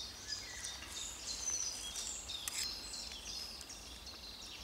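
Woodland songbirds chirping and singing, many short high notes overlapping, over a faint low hum.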